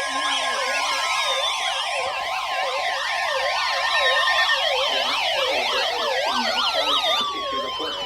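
Electronic emergency-alert siren tones, several layered at different pitches, each sweeping rapidly up and down about three times a second, with slower falling wails and a steady tone that stops about halfway through.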